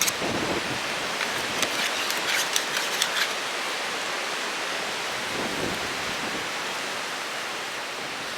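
Steady wind and surf noise on a windy beach. A run of sharp clicks or taps comes through it for about two seconds near the start.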